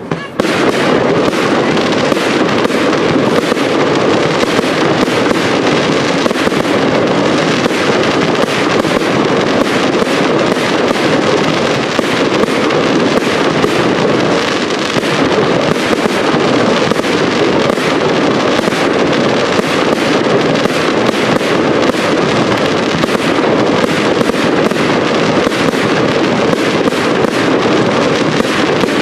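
Aerial fireworks display: a dense, unbroken barrage of bangs and crackle that starts abruptly about half a second in and keeps up at an even loudness.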